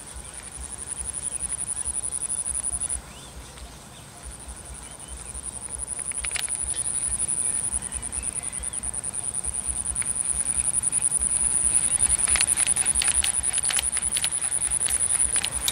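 An insect calling with a steady, high, fast-pulsing buzz. It breaks off for about a second near the start, then resumes. A run of sharp clicks comes in over the last few seconds.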